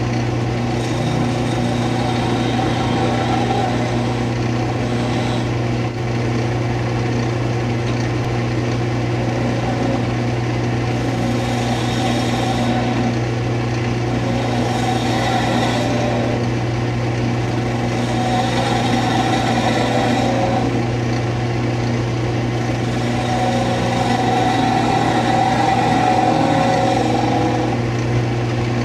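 Wood lathe motor running with a steady hum while a skew chisel cuts the spinning wood spindle: a hissing scrape of shavings that swells and fades several times.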